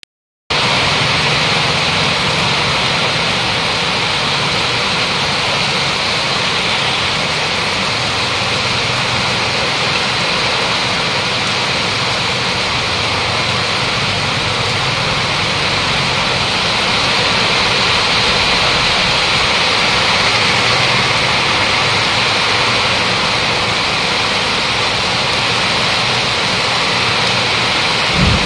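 Heavy rain pouring down: a steady, dense hiss of a downpour that starts about half a second in and holds unbroken.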